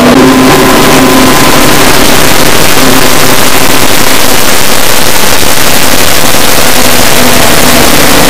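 Very loud, distorted wall of noise from a piece of audio stacked over itself many times, with a few steady tones coming and going through a dense hiss.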